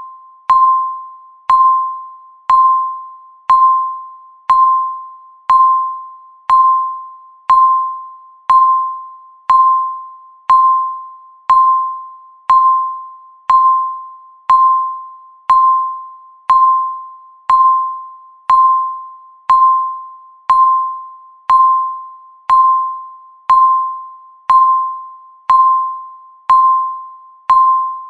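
Countdown timer's per-second beep: a single bell-like electronic ding struck once a second, each one dying away before the next, in an even unbroken rhythm.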